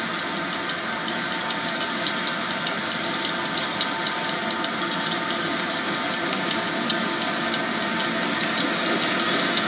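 Diesel-electric locomotive engine running steadily at the head of a coal train, getting a little louder near the end.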